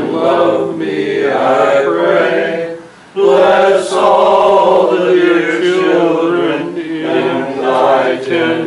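Voices singing a hymn together in slow, held notes, with a short pause for breath about three seconds in.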